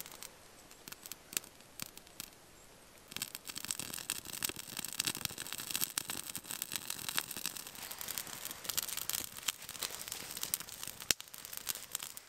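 Small twig fire in a bushbox wood stove crackling: a few scattered clicks at first, then dense crackling from about three seconds in as the flames catch. The wood is damp, and the fire is hard to keep going.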